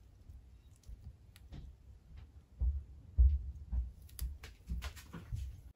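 Light clicks and a few soft knocks as varnished wooden helm handles are picked up and stood upright on a board by gloved hands, busier in the second half.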